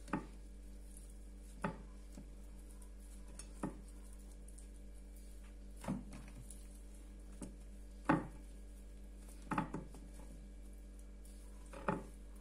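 Soft, irregular taps and knocks of hands and a flour-coated trout fillet against a ceramic platter as the fish is dredged in flour, a second or two apart, over a faint steady hum.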